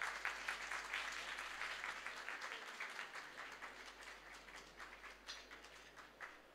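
Audience applauding, dense at first, then thinning to a few scattered claps that stop near the end.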